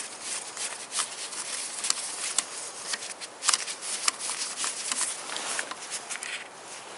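Ratchet wrench clicking and rasping in irregular short spells as a socket on an extension works loose an ignition coil hold-down bolt.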